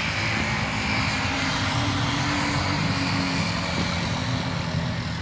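Arctic Cat ATV engine running hard and steady as the quad pushes through a mud bog pit.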